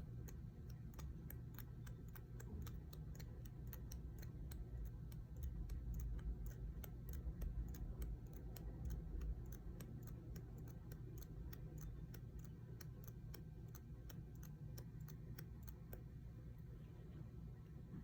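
Even, rapid ticking, about three to four ticks a second, over a steady low hum; the ticking stops near the end.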